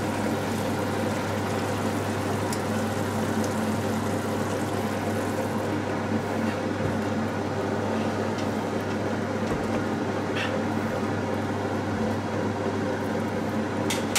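Hot-air fryer's fan running with a steady hum, loud enough to be called a racket. A few faint clicks from a wooden spatula stirring sauce in a pan sound over it.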